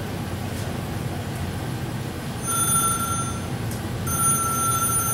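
A telephone ringing tone: a steady, high electronic tone sounds twice, first for about a second and then, after a short gap, for about two seconds. It is a phone call ringing through, heard over a low room hum.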